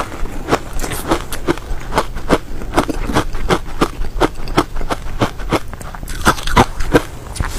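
Chewing a mouthful of frozen matcha powder: a steady run of crisp crunches, about three or four a second.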